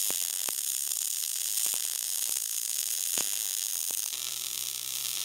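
Short-circuit MIG welding arc burning on a vertical uphill weld: a steady high hiss with scattered sharp pops. About four seconds in, a steady low hum joins.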